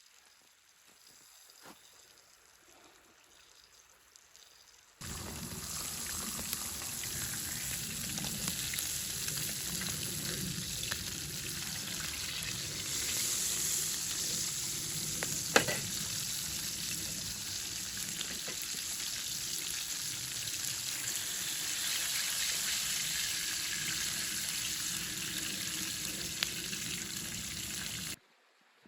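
Food frying in a pan, a steady sizzle that starts suddenly about five seconds in and cuts off near the end, with one sharp click about halfway through.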